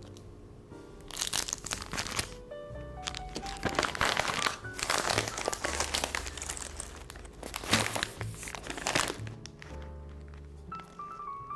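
Plastic food bags crinkling in bursts as they are picked up and handled, over soft background music; the crinkling dies away near the end, leaving the music.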